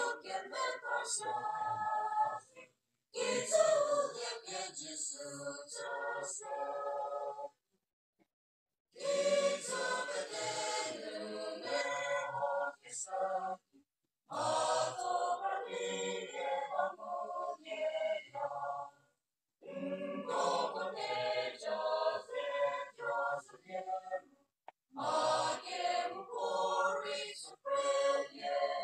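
Mixed choir of women and men singing in parts, with a conductor leading. The singing comes in phrases of a few seconds, each broken off by a brief complete silence.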